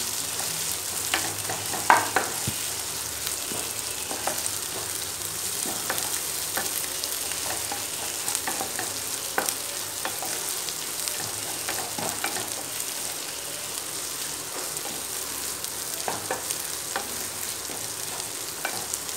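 Sliced onions with curry leaves and crushed ginger, garlic, cumin and pepper sizzling in hot oil in a nonstick kadai as they sauté, with a steady hiss. A spatula stirs them, scraping and tapping the pan now and then, most sharply about two seconds in.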